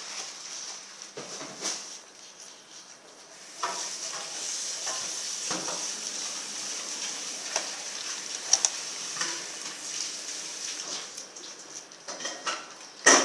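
Rottweiler gnawing on a whole frozen raw turkey: teeth scraping over the frozen meat in an irregular rasp, broken by sharp crunches and clicks. The rasp grows stronger a few seconds in, and the loudest crunches come about eight and a half seconds in and near the end.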